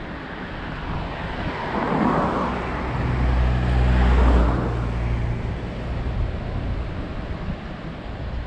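A motor vehicle passing close by: its engine hum and tyre noise rise to a peak about four seconds in and then fade away.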